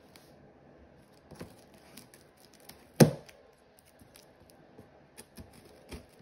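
Scissors cutting and scraping through the cardboard of a large box in scattered short snips, with one sharp, loud thump about three seconds in.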